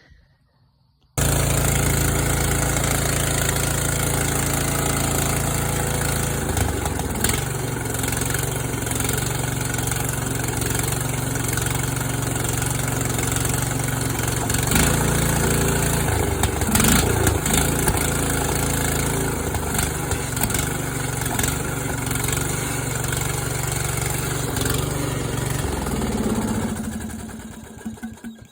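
14 horsepower Briggs & Stratton engine on a Yard Machines riding mower, running steadily and then dying away near the end. The engine runs with a new steel flywheel key in place of the two soft keys that sheared.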